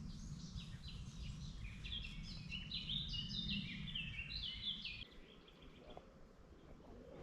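A songbird singing a fast series of short notes that step down in pitch, over a low rumbling background that fades about five seconds in.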